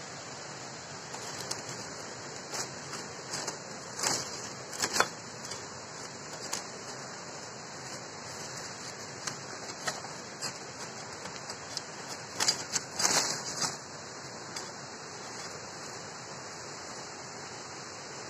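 Dry bamboo leaves and stalks rustling and crackling as someone moves through a bamboo thicket, in short spells. The loudest spells come about four to five seconds in and again around twelve to thirteen seconds in, over a steady high hiss.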